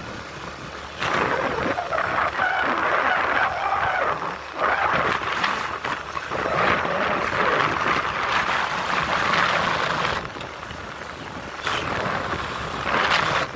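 Engine and road noise of a moving vehicle, coming in about a second in and wavering up and down, with brief drops near the middle and near the end.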